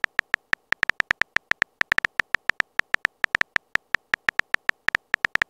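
Phone keyboard typing sound effect: a fast, uneven run of short key-tap clicks, about nine a second, as a text message is typed.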